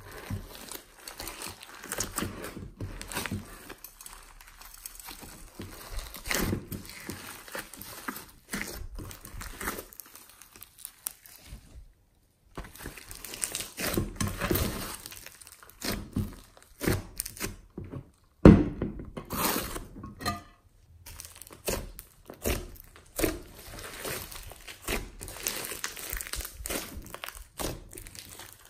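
Hands squeezing, stretching and pressing glossy slime loaded with foam beads and glitter: a continual irregular crackling and popping as the foam beads and trapped air are worked. About two-thirds through there is a single louder sharp knock.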